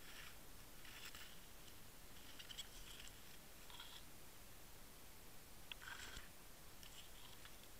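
Near silence under water, with faint, scattered small clicks and crackles a few times over several seconds.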